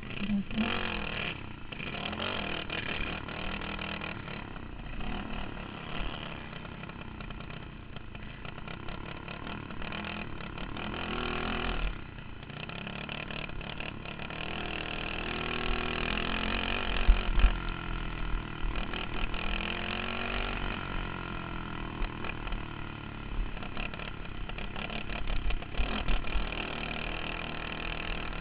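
Dirt kart engine heard from on board at racing speed, its pitch rising and falling as the driver goes on and off the throttle through the corners, with a few sharp jolts about two-thirds of the way through.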